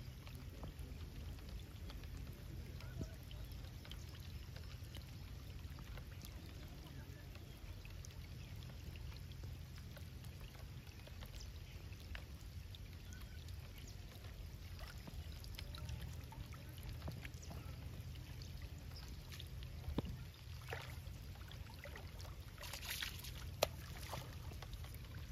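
Faint water trickling and splashing in the river shallows as a fishing hand line is pulled in and coiled by hand, over a steady low rumble, with a few brief louder splashes near the end.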